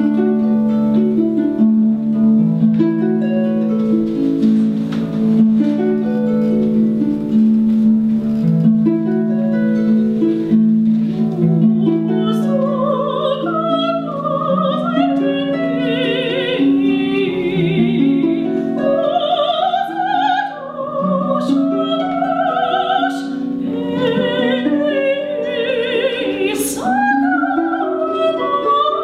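Harp playing a slow run of plucked notes; about twelve seconds in a soprano joins, singing over it with vibrato.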